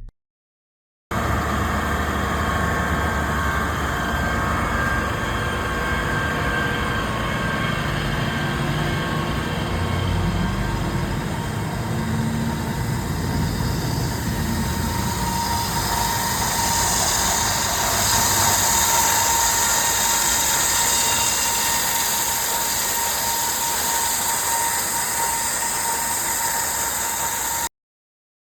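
Diamond wire saw running steadily as it cuts through reinforced concrete, with a mechanical drone and a held whine that grows stronger about halfway through. It starts and stops abruptly at clip edits.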